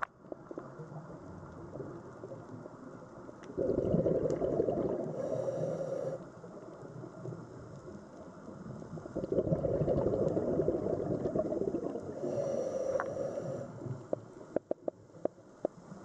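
Scuba diver breathing through a regulator underwater: two long gurgling rushes of exhaled bubbles, about four and ten seconds in, with a quieter hiss between them, then a few sharp clicks near the end.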